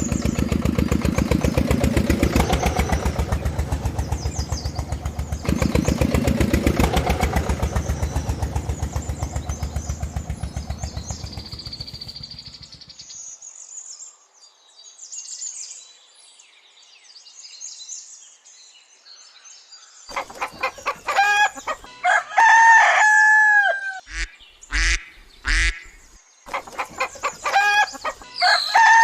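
An engine chugging with a rapid, even putter, picking up again about five seconds in, then slowing and dying away about twelve seconds in. Later, after a quiet gap, a rooster clucks and crows twice, each crow a held call that falls at the end.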